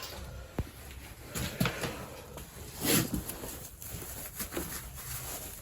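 Work gloves being pulled on: scattered rustling and light knocks of handling, the loudest about three seconds in.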